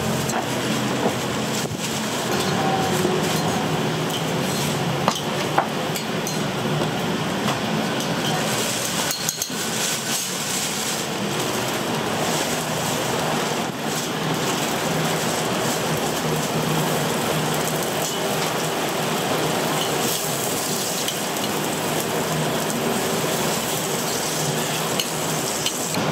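Food frying on a hot griddle, the oil sizzling steadily, with a few sharp clinks of metal utensils.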